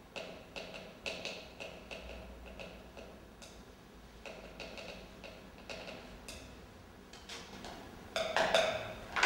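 Light, irregular taps and clinks of small objects being handled on a desk, a few a second, each with a slight ring. A louder run of clinks comes near the end.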